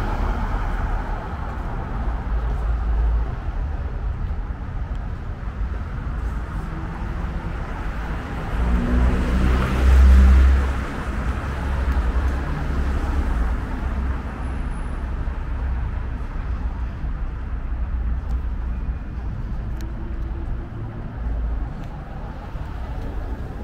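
City street traffic: a steady low rumble of cars and engines, swelling as a vehicle passes close by about ten seconds in.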